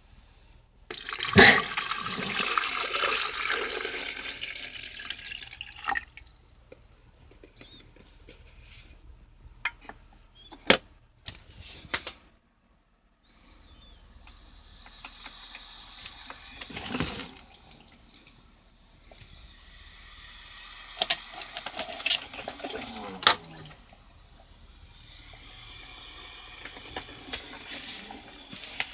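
Water running, loudest in the first few seconds and then softer, with several sharp clicks and knocks of handling in between, as the coffee maker is filled.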